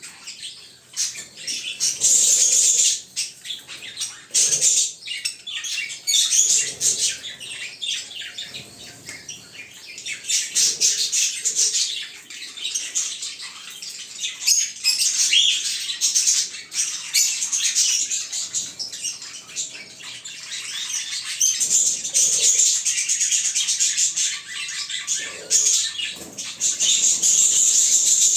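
Lovebirds chattering and squawking: a dense run of rapid, high-pitched chirps that swells and dips in loudness.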